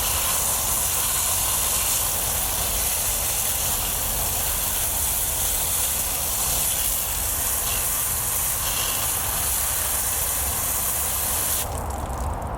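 Garden hose spraying water steadily onto a dishwasher filter, rinsing off grease loosened by soaking. The spray cuts off suddenly near the end.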